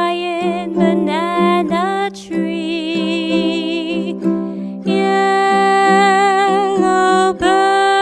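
A woman singing long held notes with vibrato over a plucked-string accompaniment.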